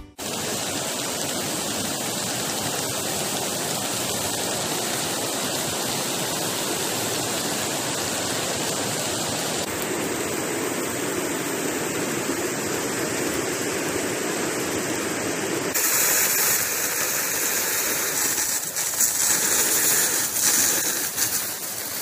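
Steady rushing hiss of heavy rain mixed with a mountain river. The sound grows brighter and hissier after about sixteen seconds.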